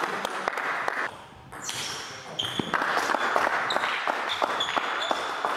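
Table tennis rally: the celluloid-type ball clicking rapidly back and forth off the bats and the table, in a reverberant sports hall, with a brief lull about a second in before the clicking resumes. Short high squeaks of players' shoes on the hall floor come in among the hits.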